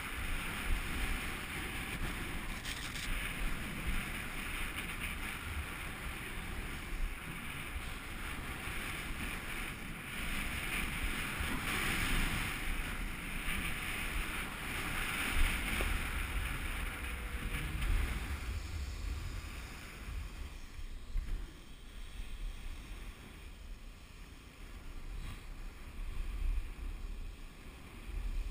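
Wind rushing over the microphone together with the hiss and scrape of sliding fast over crusty snow on a downhill run. The hiss grows louder through the middle, then eases off for the last third.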